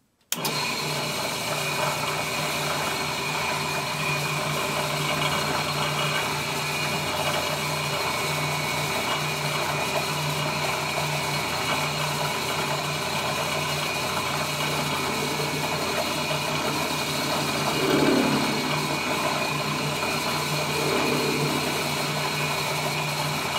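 Drill press running, its cutter milling a bite pocket into a metal saxophone mouthpiece as the table is swept by hand: a steady motor hum with cutting noise over it. The sound starts abruptly and swells briefly about three-quarters of the way through, then again shortly after.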